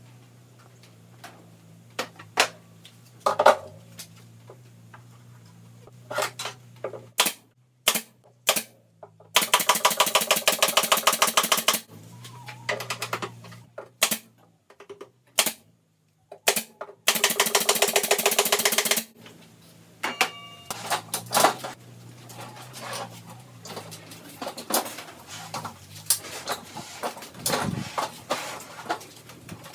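Knocks and clicks of handling work, with two bursts of a power tool running in rapid rattling strokes, each about two seconds long.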